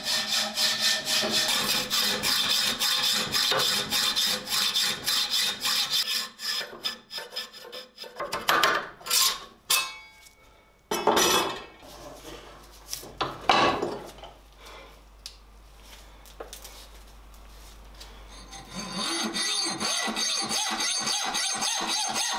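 Hand hacksaw cutting through a rusty iron axe head held in a bench vise, in quick, even back-and-forth strokes. About six seconds in the sawing stops and gives way to scattered knocks and scrapes as the head is handled and reset in the vise. Steady sawing resumes near the end, with a high ringing tone over it.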